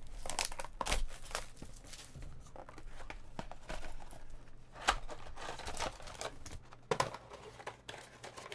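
Plastic shrink-wrap crinkling and tearing as it is peeled off a trading-card box, with cardboard rustling and scattered sharp crackles as the box is handled and opened.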